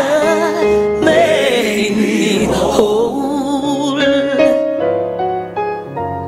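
Gospel choir and a male lead singer singing with keyboard accompaniment. The voices waver with vibrato at first, then hold long notes through the second half, fading slightly near the end.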